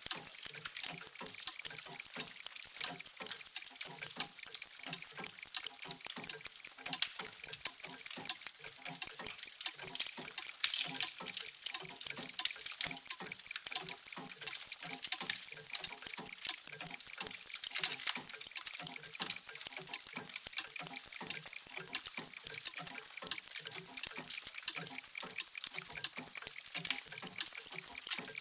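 Many mechanical clocks ticking together, their ticks overlapping into a dense, steady clicking.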